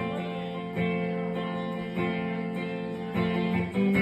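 Guitar strumming chords with no singing, a new chord struck every second or so, in the instrumental gap between a verse and the chorus.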